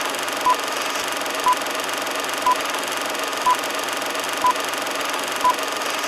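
Old film-projector clatter, a steady mechanical rattle, with a short high beep once a second marking each number of a film-leader countdown; the beeps are the loudest thing, six of them.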